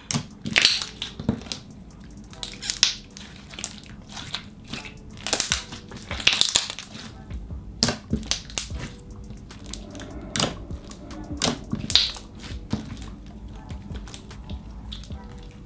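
Hands squishing, stretching and folding a thick clear blue jelly slime with boba beads, making irregular wet clicks, squelches and bubble pops.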